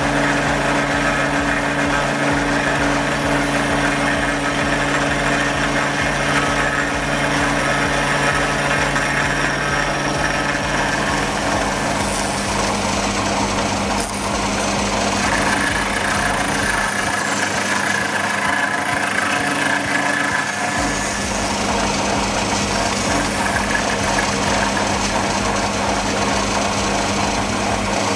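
Milling machine running, its cutter taking a cut across an aluminium workpiece: a steady machine hum with cutting noise on top, without let-up.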